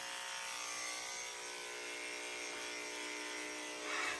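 Electric dog grooming clippers running with a steady buzzing hum.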